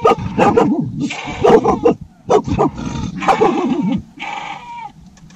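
Shepherd's dog barking loudly in a rapid, irregular run, mixed with goats or sheep bleating, raising the alarm at an animal prowling near the camp at night; the calls die down near the end.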